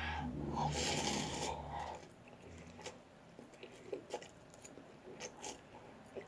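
A low steady hum for about two seconds, then faint scattered small clicks and rubbing sounds.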